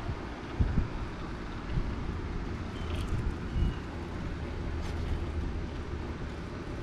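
Low wind rumble on the microphone outdoors, with a few soft low knocks as a radio-controlled rock crawler creeps over rocks.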